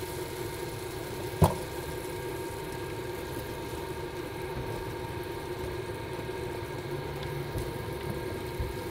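A steady mechanical hum, with one sharp knock about one and a half seconds in.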